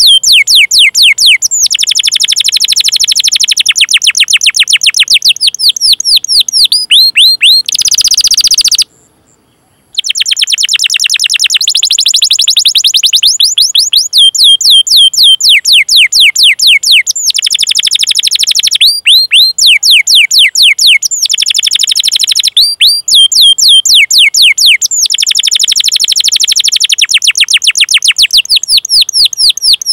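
Domestic canary singing fast, rolling trills of repeated downward-sweeping chirps, the 'cuit cuit' call song, in phrases of a few seconds each. The song breaks off for about a second some nine seconds in.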